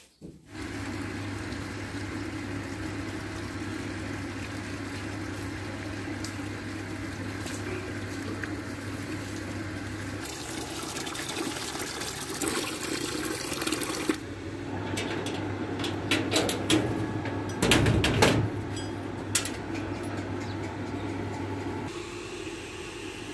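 Water from a hose pouring and splashing into a metal drinking tub while water buffaloes drink, over the steady hum of the small electric pump that feeds the hose. A few louder, sudden splashing sounds come in the second half.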